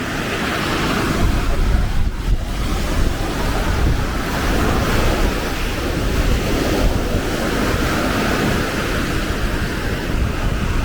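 Small Baltic Sea waves washing onto a sandy beach, the wash swelling and easing every few seconds, with wind buffeting the microphone in a steady low rumble.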